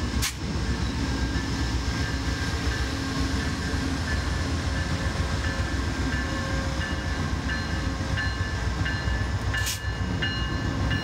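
Amtrak P42DC diesel locomotives rumbling steadily as they roll past, with thin high tones running over the rumble.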